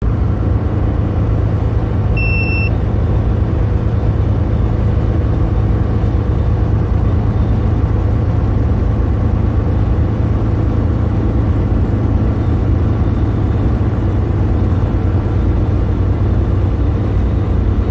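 Truck engine running, a steady low rumble with road noise. A short single electronic beep sounds about two seconds in.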